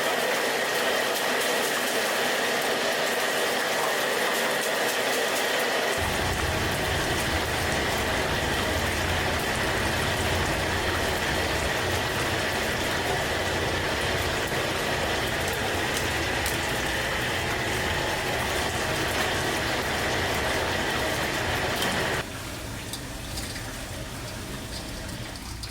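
Steady rushing kitchen noise with a faint steady whistle-like tone in it. A deep rumble comes in about six seconds in, and the whole noise drops sharply about three seconds before the end.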